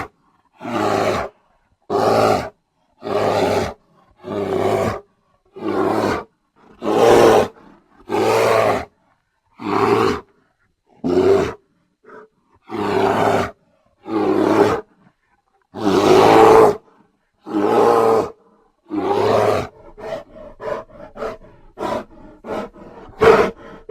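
Bear roaring over and over: about fifteen rough roars, each under a second long, coming roughly a second apart. In the last few seconds they give way to a run of short, quick grunts.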